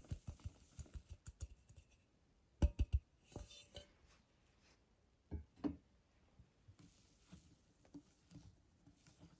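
A stainless bowl and a wire whisk knocking against a glass mixing bowl as sifted flour is emptied in and stirred into the batter. Quick light taps come first, then a few loud knocks about three seconds in, then softer scattered clinks.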